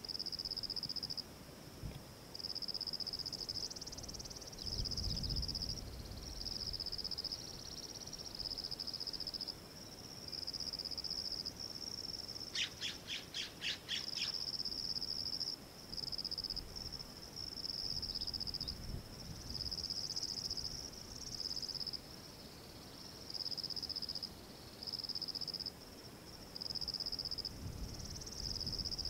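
Wildlife calls in open country: a high, thin trill repeating in phrases of a second or two with short breaks, and about halfway through a quick run of about eight sharp notes. Two brief low rumbles come near the start and near the end.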